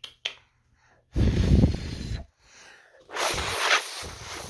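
A child breathing hard right at the phone's microphone: two loud, breathy bursts of about a second each.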